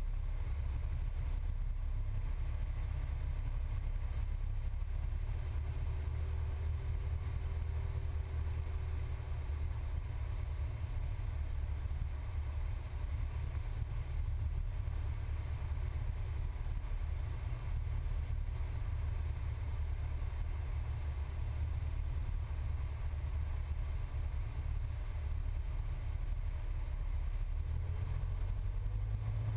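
Cessna 172's piston engine running at reduced power on final approach, a steady low drone mixed with airflow noise in the cockpit. A faint tone rises in pitch near the end.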